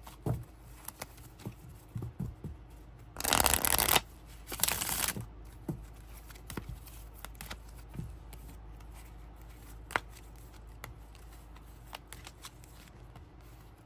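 A deck of cards being shuffled: two loud bursts of shuffling about three and five seconds in, then scattered soft clicks and taps as the cards are handled and dealt out.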